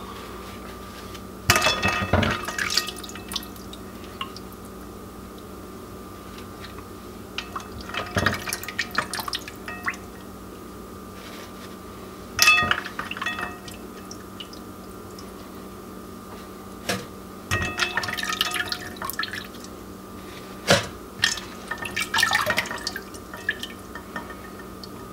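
Water dripping and splashing and ice cubes clinking against a glass bowl as wet quail carcasses are lifted out of ice water, in short bursts every few seconds, over a steady faint hum.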